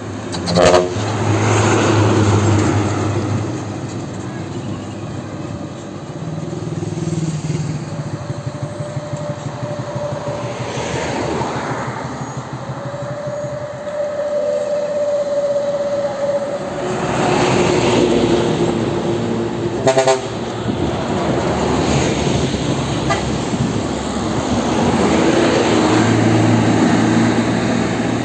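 Diesel trucks and a bus driving past one after another, their engines rising and falling as each goes by. Vehicle horns sound several times: a sharp short toot about a second in, longer held notes around the middle, and another short burst of toots about twenty seconds in.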